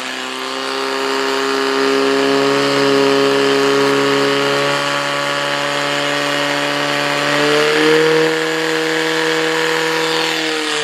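Small engine of a portable fire pump running at high revs under load, pumping water into the hose lines. It holds a steady pitch, rising a little about seven and a half seconds in.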